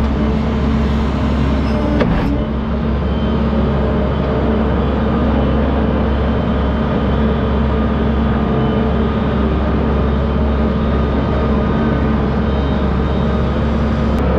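Diesel engine of a compact construction machine (excavator or skid-steer loader) running steadily under work, with a low, even drone.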